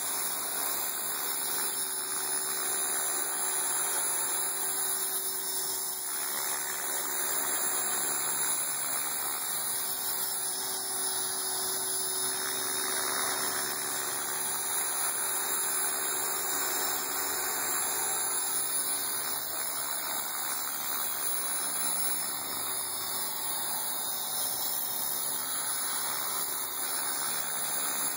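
Align T-Rex 450 Sport electric RC helicopter hovering: a steady high-pitched whine from its electric motor and drive gears, mixed with the whoosh of the spinning rotor blades.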